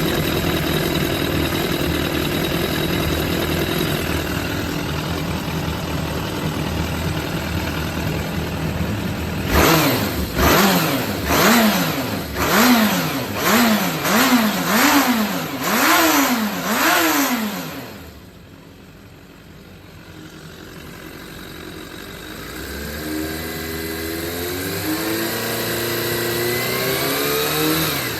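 Suzuki GSX400 Impulse inline-four engine running on a start-up check. It idles steadily, is then blipped about seven times in quick succession with the revs rising and falling, drops quieter for a few seconds, and then its note climbs again in steps. The seller lists this engine as high-compression and free of abnormal noises.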